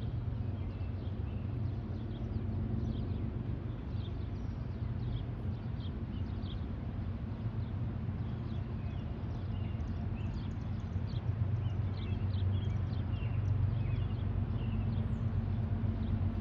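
Steady low rumble of an approaching freight train's diesel locomotives, growing a little louder near the end, with small birds chirping over it.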